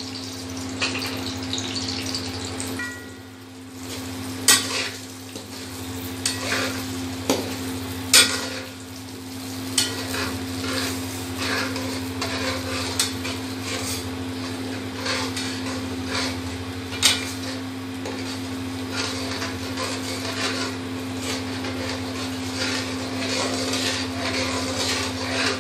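Semolina roasting in hot ghee in a metal karahi, stirred with a metal slotted spoon: a steady sizzle with the spoon scraping and clinking against the pan and a few sharper knocks. A steady low hum runs underneath.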